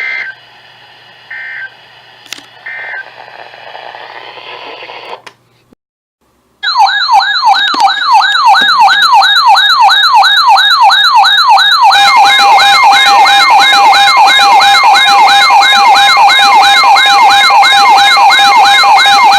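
NOAA weather radio alert: three short screechy data bursts of the EAS SAME header, a brief silence, then a loud electronic warbling alarm that rises and falls about three times a second. A steady tone joins the warble about halfway through, and it stops abruptly near the end. The alarm signals that a new severe thunderstorm warning is being issued.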